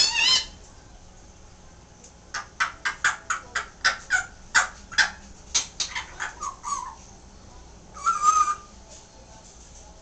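Timneh African grey parrot calling: a short falling whistle at the start, then a fast run of clicks and chirps, about four a second, for several seconds, and a single harsh squawk about eight seconds in.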